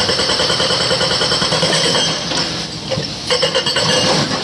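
Hydraulic rock breaker on an excavator hammering a boulder in rapid, even strokes, stopping for about a second midway and then starting again, with the excavators' diesel engines running underneath.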